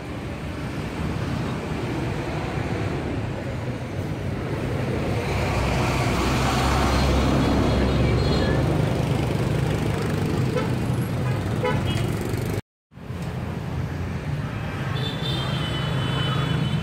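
Street traffic: motorbike and vehicle engines running and passing, swelling in the middle, with short horn toots near the end. The audio cuts out for a split second about three-quarters of the way through.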